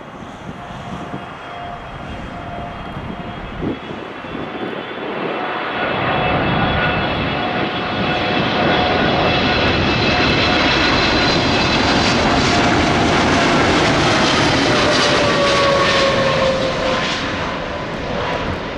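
Boeing 777-300ER's twin GE90 turbofans on arrival: the jet noise builds over several seconds to a loud, steady peak, then eases as the engine whine falls in pitch while the aircraft passes.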